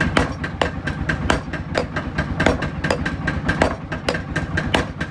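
Hand hammer striking red-hot steel rebar on an anvil, forging a sickle blade, at about three blows a second. A steady low hum runs underneath.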